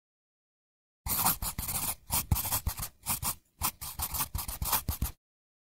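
Pen-on-paper scratching sound effect, a run of quick scribbling strokes that starts sharply about a second in and stops abruptly about four seconds later, with two short breaks.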